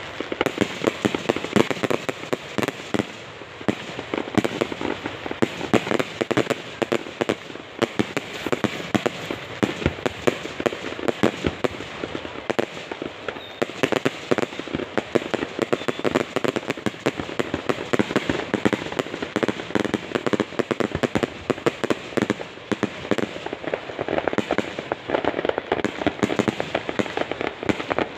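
A long string of firecrackers going off in a rapid, unbroken crackle of bangs, with louder pops scattered through it.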